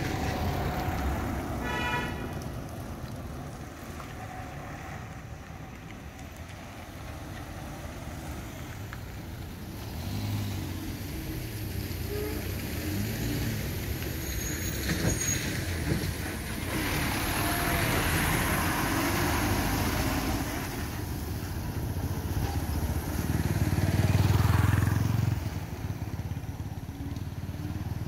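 Road vehicle driving along: steady engine and tyre rumble, swelling louder for a couple of seconds near the end.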